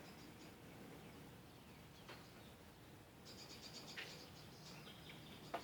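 Near silence: faint high chirping, thickest in the second half, and a few light clicks, the sharpest just before the end.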